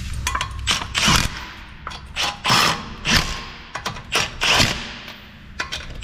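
Cordless impact wrench with a 19 mm socket running lug nuts onto a wheel, hammering in several short bursts as each nut is tightened.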